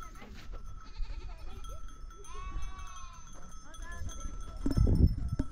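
Goats bleating: one long wavering bleat in the middle among fainter calls from the herd. A loud low rumble comes in near the end.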